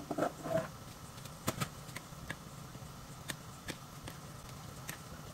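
Chopped shallots and green chillies tipped into a glass bowl of thick sauce and then stirred with a spoon: a soft rustle at the start, then a few light, scattered clicks of the spoon against the glass.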